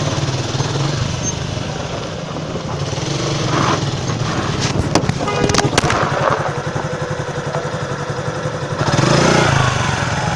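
Motorcycle engine running steadily at low revs, with a few sharp clicks or knocks a little past the middle and a brief louder swell near the end.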